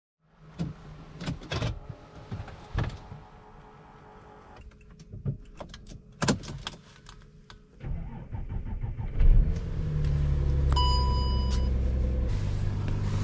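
Clicks and knocks, then a car engine starts about nine seconds in and settles into a steady idle. A short electronic beep sounds just after the engine starts.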